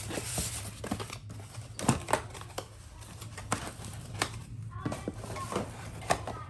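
Cardboard boxes being handled: slid against each other and lifted out of a packed bag, with scattered light knocks and scrapes.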